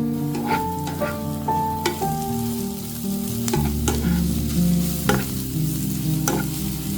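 Food sizzling in hot oil in a frying pan while it is stirred, with a few short knocks, under background music with held notes.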